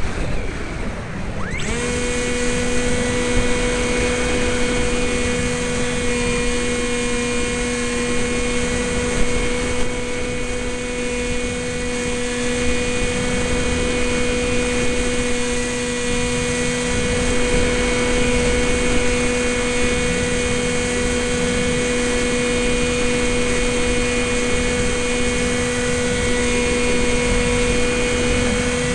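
Electric motor and propeller of a Sky Surfer RC plane, whining at a steady pitch over wind rush, heard close up as from a camera mounted on the plane. The whine starts suddenly about two seconds in, after a stretch of wind noise alone.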